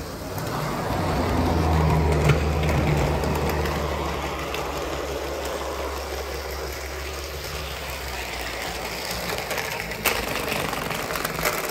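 HO-scale Athearn EMD FP45 model diesel locomotive running along the track: a steady hum and whir from its motor and gears, loudest about two seconds in, with a few clicks near the end. The owner says it runs not too bad but needs a bit of a lube job.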